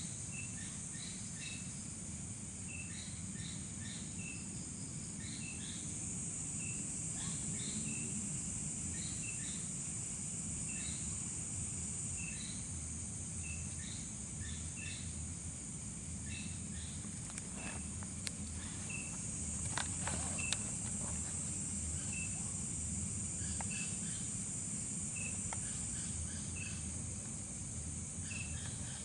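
Night insect chorus: a steady high-pitched buzz of crickets and other insects, with a short high chirp repeating a little more than once a second, over a low steady rumble.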